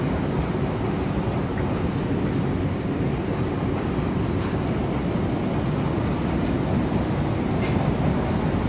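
Steady low rumble of city background noise, with no single sound standing out.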